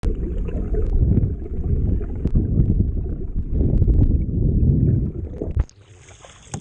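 Muffled rumble of water rushing past an underwater camera, with a few faint clicks. It cuts off abruptly near the end, giving way to much quieter surface sound.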